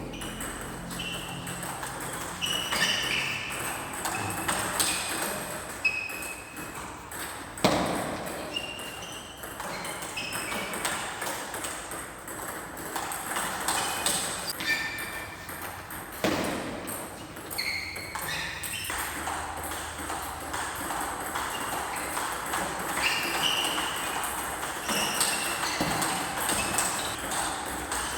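Shoes squeaking on an indoor court floor, short squeaks coming again and again, with two sharp hits, one about eight seconds in and one about sixteen seconds in.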